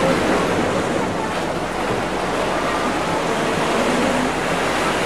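Steady rush of waves and wind, with faint snatches of distant voices.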